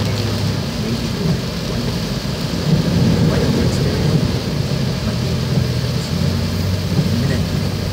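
Heavy rain hitting a car's roof and windows, heard from inside the cabin as a steady wash of noise, with the car's engine humming low underneath.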